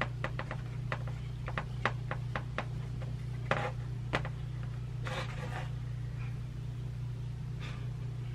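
Marker scratching on a small whiteboard in a few short strokes, with a run of quick light clicks and taps in the first few seconds, over a steady low electrical hum.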